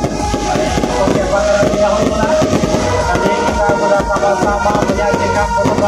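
Aerial fireworks crackling and popping in rapid succession, mixed with loud music.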